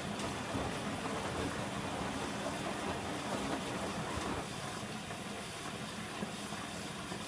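Bosch Logixx 8 WAS28466 washing machine running its cycle: steady drum and water noise, easing off a little about halfway through.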